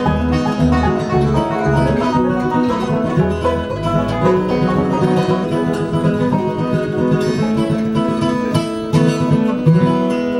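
Bluegrass band playing an instrumental passage with no singing: quick banjo picking over strummed acoustic guitar, with a bass pulsing low notes underneath.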